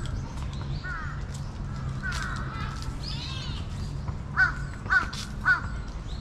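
A crow cawing three times, about half a second apart, in the second half. Fainter bird chirps come before it.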